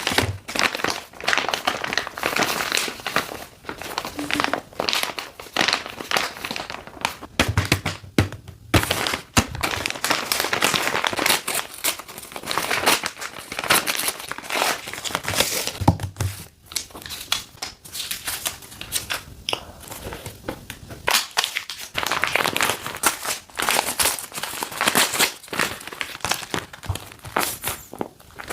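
Packaging being handled and torn open: irregular crinkling and crackling with short rips and sharp rustles.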